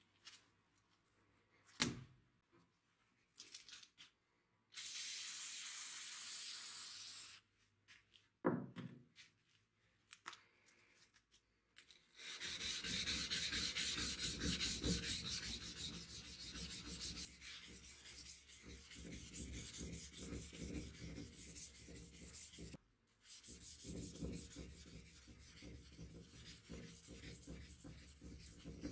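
Sandpaper wrapped on a stick rubbed quickly back and forth along a spring-steel sword blade, a steady run of rapid scraping strokes that starts about halfway through and pauses briefly once. Before that there are only a few handling knocks and a short hiss.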